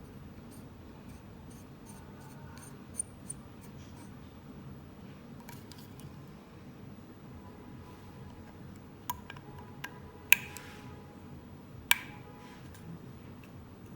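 Scattered small metallic clicks and taps from a small phone-repair screwdriver being used, with three sharper clicks that ring briefly, loudest about ten seconds in, over faint room noise.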